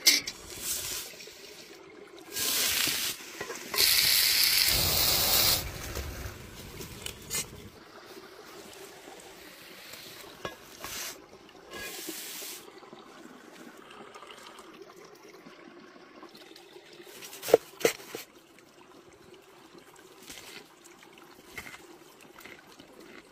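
Trickling stream water under a run of food-preparation sounds. Several bursts of hissing noise come early on and around the middle, and a few sharp clicks follow later.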